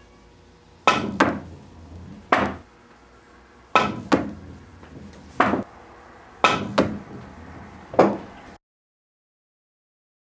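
Pool cue with an experimental two-material composite tip (hard rubber base, leather top) striking the cue ball three times. Each shot is a crisp tip-on-ball click followed a moment later by a lighter knock, then about a second and a half later by a knock as the ball reaches the near cushion. It cuts off suddenly after the third shot.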